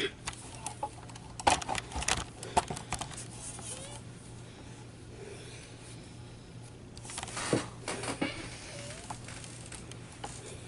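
Close handling sounds of knitted yarn fabric and a sewing needle being worked as a seam is stitched: two spells of soft rustling and light clicks, one about a second and a half in and one about halfway through. A steady low hum runs underneath.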